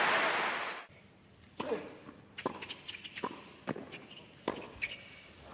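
Crowd noise cuts off about a second in, then a tennis rally on a hard court: a run of sharp pops from racket strings striking the ball and the ball bouncing, with a few short shoe squeaks between them. Crowd noise begins to rise again at the very end.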